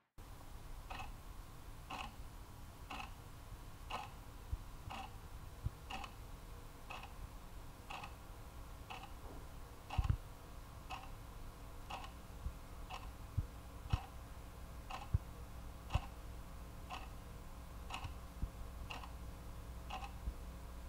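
A clock ticking steadily and faintly, with a few soft low knocks now and then.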